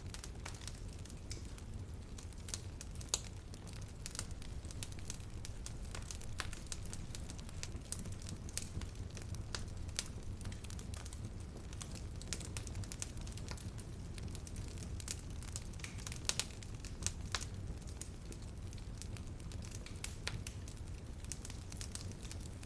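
Wood fire in a fireplace crackling: a steady low rumble of flames with irregular sharp pops and snaps, a few louder than the rest.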